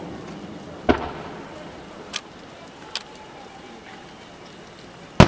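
Aerial firework shells bursting: a deep boom about a second in, two sharp cracks a little later, and a loud bang near the end.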